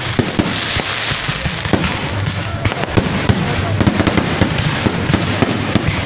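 Aerial fireworks bursting overhead in quick succession: a dense, continuous stream of sharp pops and bangs.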